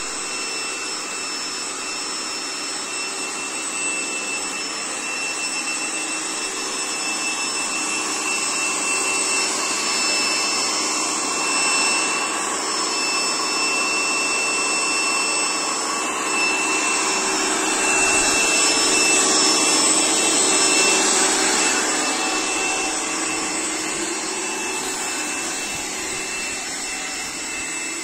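Small electric pressure washer running steadily, its motor and pump giving a constant whine over the hiss of the high-pressure water jet, a little louder for a few seconds past the middle.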